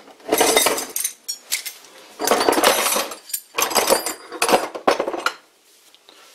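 Bundle of thin steel rods and bar stock rattling and clinking against each other and the wooden bench top as they are gathered up by hand, in several bursts.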